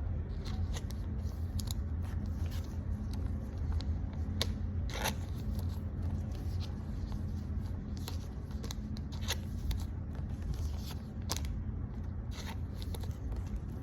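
Pokémon trading cards and their foil pack wrapper being handled by hand: crinkling, rustling and sharp little clicks in scattered bursts, over a steady low hum.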